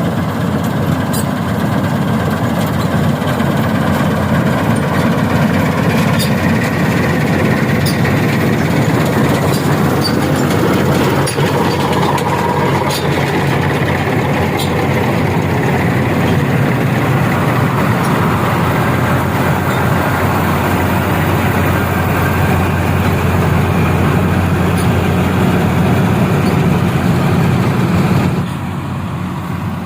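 Dasmesh 3100 combine harvester running steadily while harvesting rice, a loud mix of engine and machinery noise with scattered faint ticks. The level drops suddenly near the end.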